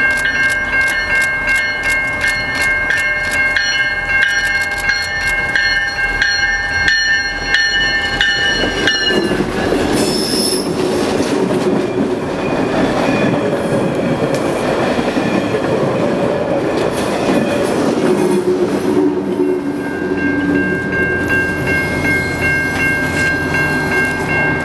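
A diesel-hauled passenger train passing on a curve. Steady high-pitched wheel squeal sounds as the locomotive comes round the curve. About nine seconds in, the locomotive's engine and the rolling coaches rumble by, and the squeal returns near the end as the last cars go past.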